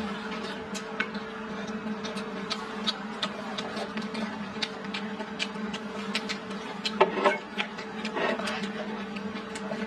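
Close-up chewing and mouth sounds of a person eating salted chicken, with many small wet clicks and smacks and a louder bite or munch about seven and eight seconds in. A steady low hum runs underneath.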